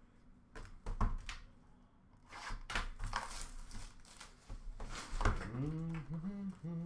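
A trading card box and its wrapping being handled and opened: scattered knocks and clicks with bursts of crinkling and tearing. About five seconds in comes a low, steady hum with a gliding start, the loudest part.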